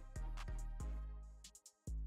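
Background music with a steady beat: electronic track with bass and drums.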